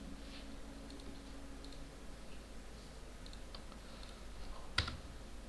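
Faint scattered clicks at a computer, with one sharp, louder click just before five seconds in, over a low steady hum.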